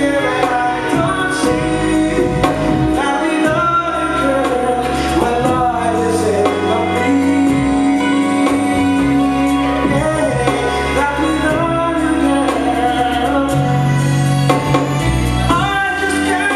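A man singing into a microphone over instrumental backing music, with a steady bass line beneath the voice.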